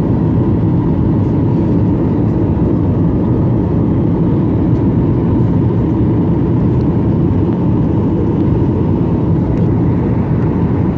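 Steady cabin noise inside a Boeing 737 airliner descending to land: the drone of the engines and rushing air, even throughout, with a faint steady tone above it.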